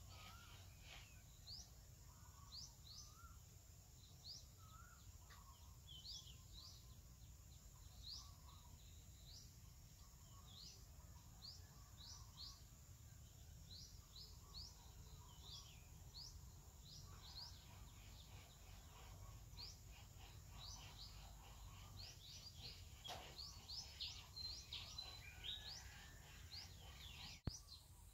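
Faint outdoor background with a bird repeating short, high, rising chirps about once or twice a second, busier near the end, over a low steady rumble. A single sharp click sounds near the end.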